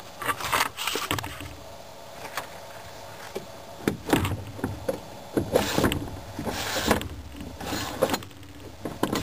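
Aluminium canoe stabilizer arm scraping and clunking in its clamp on the canoe gunwale as it is slid in to pull the floats tight to the hull. The sound comes in several short bursts.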